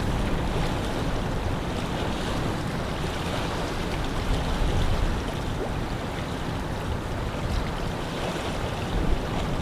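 Wind blowing across a lake, with water washing at the shore and a low, gusting rumble of wind on the microphone that swells and eases.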